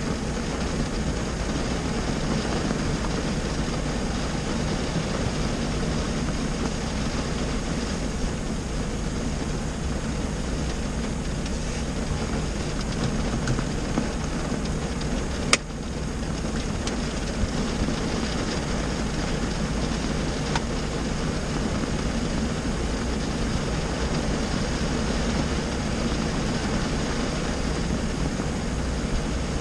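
Rain falling steadily on a car's roof and windshield, heard from inside the stationary car, with a low steady hum underneath. A single sharp click about halfway through.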